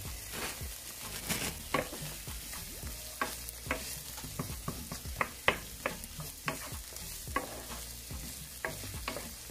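Onions and scallion sizzling in olive oil in a frying pan, with irregular clicks and scrapes of a utensil stirring them against the pan.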